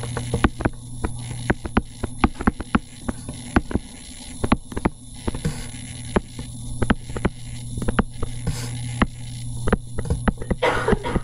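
Pen stylus tapping and clicking on a tablet screen while handwriting, an irregular run of sharp little ticks, over a steady low electrical hum.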